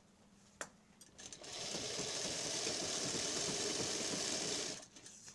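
Sewing machine running a straight seam as a fall is stitched onto a saree's edge, starting about a second and a half in and stopping near the end. A single click comes just before it starts.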